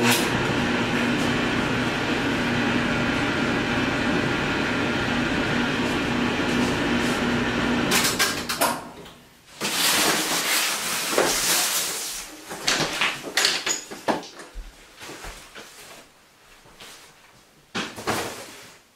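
A laundry machine running with a steady hum for about eight seconds, then stopping. After it, a stretch of cardboard rustling and a few scattered knocks.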